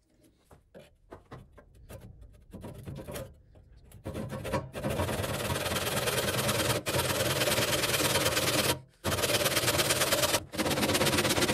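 Hand saw cutting through wood in steady, rapid strokes, starting about four seconds in and breaking off briefly several times. A turned wooden vessel is being cut free at its base. Before the sawing there are only faint light ticks of handling.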